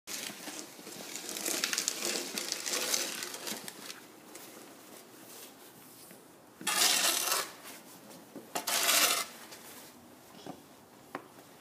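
Shovel blades scraping and pushing snow along a paved driveway: a long run of rough scraping over the first few seconds, then two short, loud scrapes around seven and nine seconds in.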